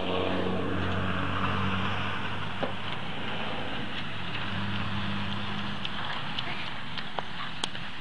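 A motor vehicle engine running steadily as a low hum, fading out about six seconds in, with a few light clicks near the end.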